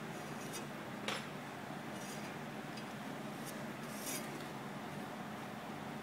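Small plastic and metal switch parts handled between the fingers, giving scattered light clicks and brief scratches; the sharpest click comes about a second in. A steady hiss lies under it all.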